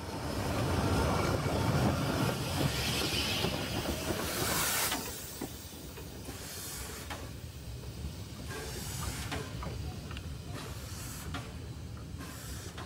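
Steam locomotive 434.2186 rolling slowly past, with a steady rumble and a loud steam hiss that stops abruptly about five seconds in. After that a quieter stretch with scattered sharp clicks and knocks.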